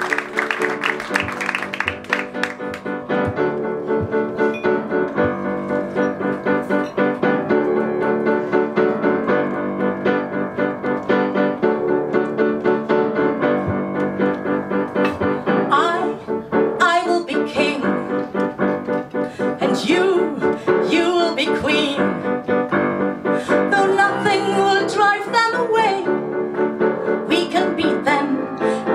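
Piano playing chords steadily, with applause fading out in the first two seconds. A voice rises over the piano at times in the second half.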